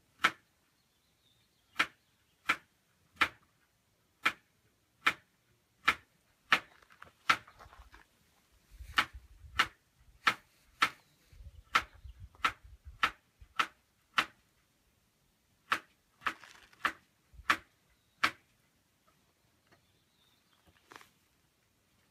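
Newly lit wood campfire crackling: sharp pops about once a second, thinning out near the end, with two short stretches of faint low rumble in the middle.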